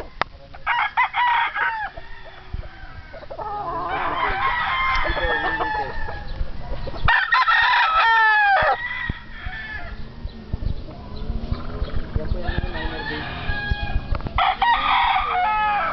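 Young game-fowl cocks (bullstags) crowing, about four crows in turn across the stretch, the loudest about seven seconds in, with clucking between.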